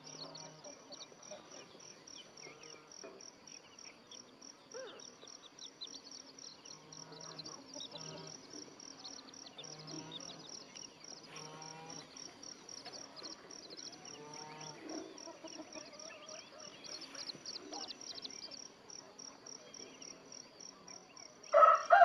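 Steady high-pitched insect trilling with faint scattered chirps and peeps; just before the end a rooster starts crowing loudly.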